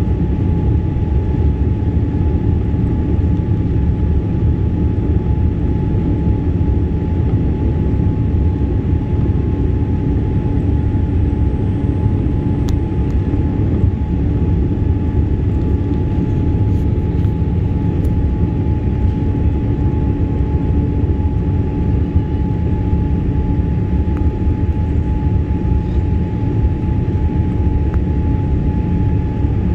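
Jet airliner cabin noise at a window seat: a steady rumble of engines and rushing air with a constant hum above it, as the plane descends on approach with its flaps extended.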